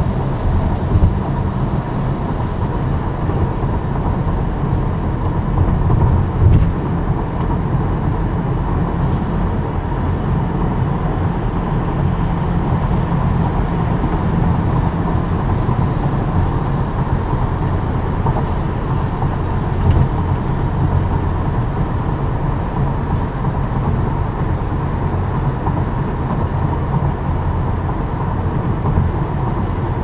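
Steady road noise from a 2023 Tesla Model Y's tyres on a wet highway: a continuous low rumble with a hiss over it. The car is electric, so no engine is heard. A few small bumps stand out, about a second in and again after six seconds.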